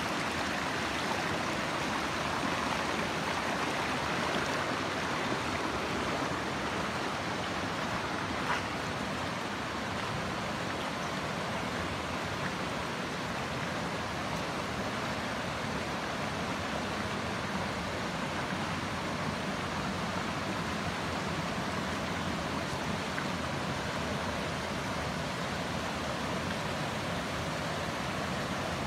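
Rushing water of a rocky mountain stream and small waterfalls, a steady even noise. One brief click about a third of the way through.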